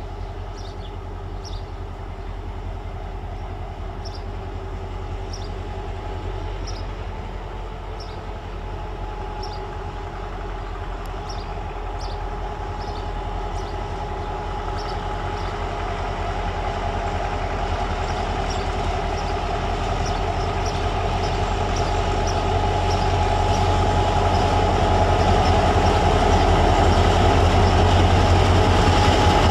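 Diesel locomotive hauling passenger coaches as it approaches, its engine a steady drone that grows gradually louder as it comes closer.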